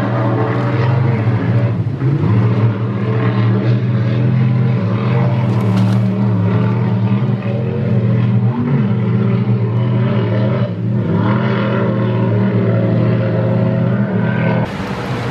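Offshore racing powerboat's engines running flat out, a loud steady drone with slight shifts in pitch. Near the end it turns quieter and hissier.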